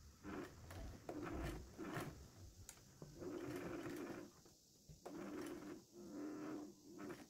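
Household sewing machine stitching through a leather tab on thick denim, running in short stop-start bursts with brief pauses between them.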